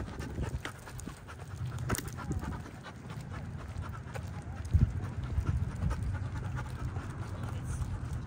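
A dog panting while out walking, with footsteps and rustling close by. A single thump a little past halfway is the loudest sound.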